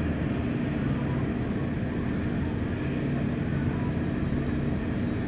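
Steady low rumble of a departing airliner's jet engines, with a few faint constant hums underneath.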